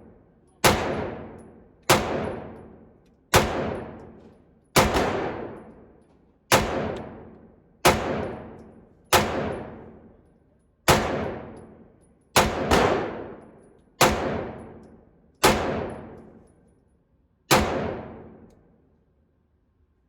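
9mm pistol being fired in slow, steady aimed fire: thirteen single shots about a second and a half apart, with a quick double about two-thirds of the way through. Each shot rings out and dies away over a second or more.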